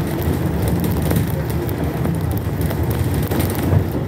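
Cabin noise inside a moving trolleybus: a steady low rumble of tyres and running gear, with scattered light rattles.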